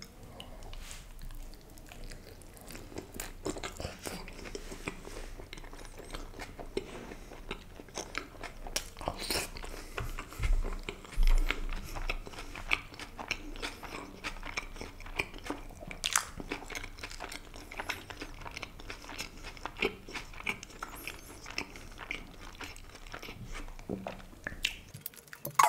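Close-miked chewing of a big mouthful of Subway paneer tikka wrap: continuous wet, clicking mouth sounds, with a few louder clicks.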